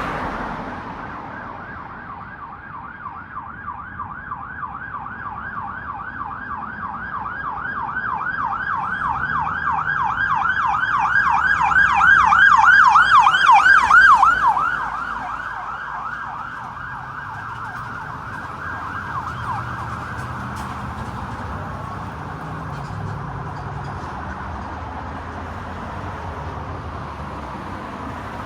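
Emergency vehicle siren in rapid yelp mode, about three sweeps a second. It grows louder, peaks about halfway through, then drops off sharply, leaving a fainter siren tone over traffic rumble.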